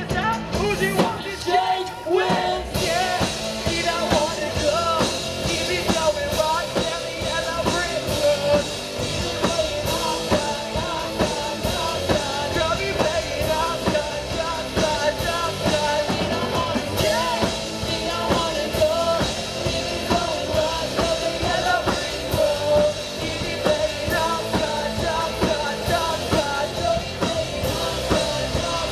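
Live rock band playing with a lead singer: drums, electric guitar and sung vocals through a PA system.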